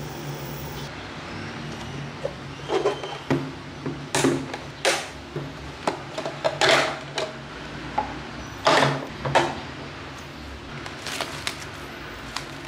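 Stiff moulded plastic packaging being handled: an irregular run of sharp clicks and crackles as a kitchen knife is taken out of its plastic case. A steady low hum runs underneath.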